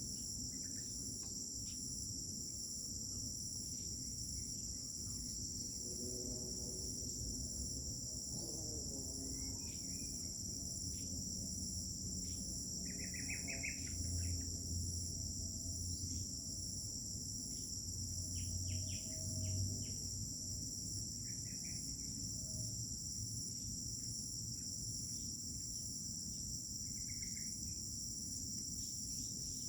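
Crickets chirring in a steady chorus of several high tones, one of them pulsing, with a few short bird calls scattered through. A low rumble swells briefly twice around the middle.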